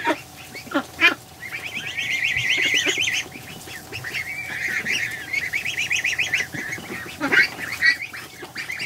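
Young geese and ducks calling: two long runs of rapid, high trilling peeps, with a few short calls that drop steeply in pitch near the start and again near the end.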